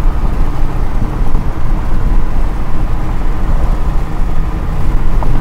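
Steady road and wind noise of a moving car at highway speed, heard from inside, with a heavy low rumble.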